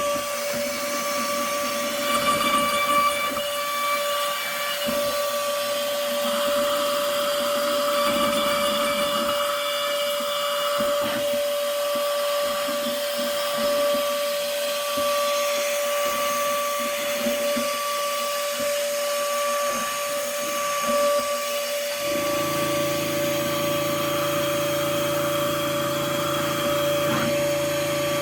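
CNC router spindle running with a steady high whine while the cutter mills padauk wood, with an uneven rasping hiss from the cut. About 22 s in, a steady lower hum joins.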